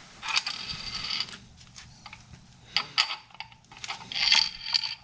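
Small metal parts clinking and rattling in three short spells, with a light metallic ring, as light-bar mounting brackets and hardware are handled.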